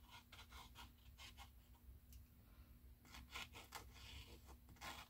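Faint scratching of an ink pen's nib drawing quick, short strokes on textured watercolor paper, in irregular bunches.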